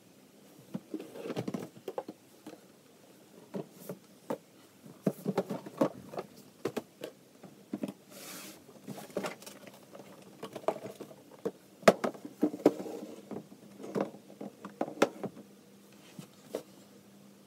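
Cardboard and small decorative boxes being handled and put away on a shelf: irregular taps, knocks and scuffs as boxes are picked up, slid and set down, with one sharper knock about two-thirds of the way through.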